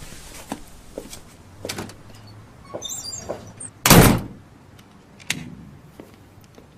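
A series of small knocks and clicks, with one loud thump about four seconds in, just after a brief high squeak.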